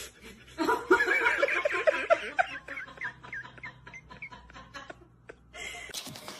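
A person laughing in a quick run of repeated 'ha' bursts that trails off. Near the end a scraping, rubbing noise starts abruptly.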